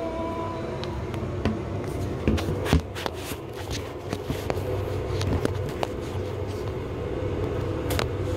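Scattered knocks, clicks and rustling of things being handled, with a few sharper knocks a little past two seconds in, over a steady low hum.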